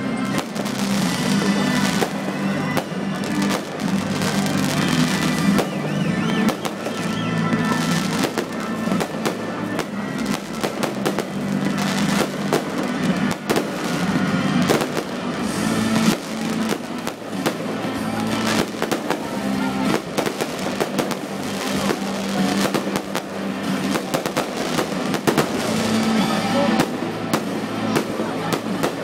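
Fireworks firing in quick succession: many bangs and crackles, one after another with no break, over music.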